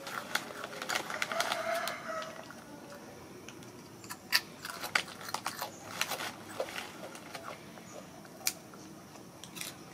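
A rooster crowing in the background about a second in, followed by a scatter of sharp clicks and taps.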